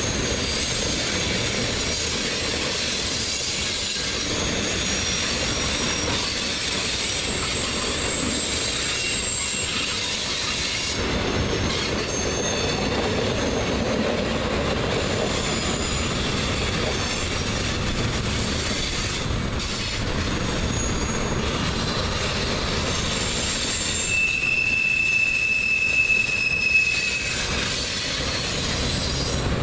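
Freight cars of a manifest train rolling past, a steady rumble and rattle of tank cars and boxcars on the rails, with thin high metallic squeals from the wheels. Near the end, one squeal holds steady for about three seconds and is the loudest moment.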